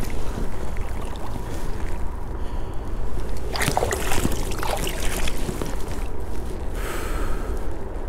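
Shallow water sloshing, with a few short splashes about three and a half to five seconds in, over a steady low rumble.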